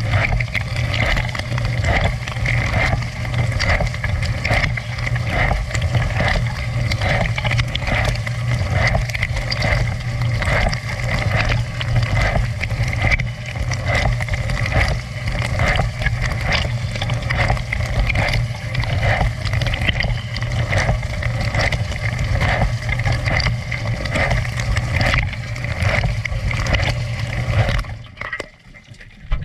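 Dishwasher running a wash cycle: the pump motor hums steadily under water spraying and splashing inside the tub. The sound cuts off sharply near the end.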